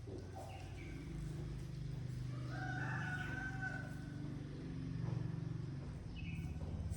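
A rooster crowing once, a pitched call of about a second and a half starting about two and a half seconds in, over a steady low hum.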